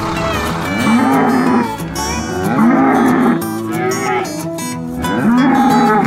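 Dairy cows mooing: three long moos, one after another, over background music.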